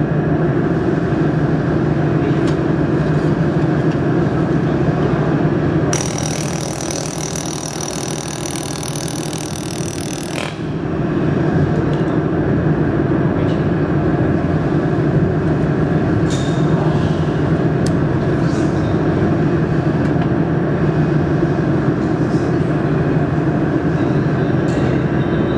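Steady mechanical hum of running machinery. A high hiss joins about six seconds in and cuts off about four and a half seconds later.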